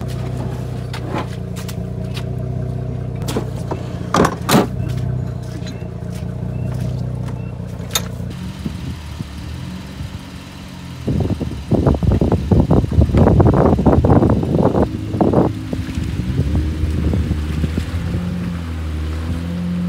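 Vehicle engines idling steadily with a few sharp knocks of recovery gear being handled. About eleven seconds in, a loud irregular churning of tyres in mud begins as a stuck SUV is pulled out on a recovery strap, and near the end the engine pitch shifts up and down under load.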